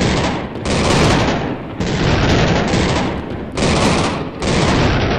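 Cannon fire sound effects: a rapid series of about six heavy blasts in a row, each starting and stopping abruptly.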